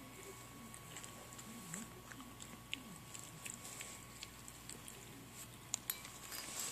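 A small puppy crunching dry kibble from a bowl: faint, scattered crunches and clicks.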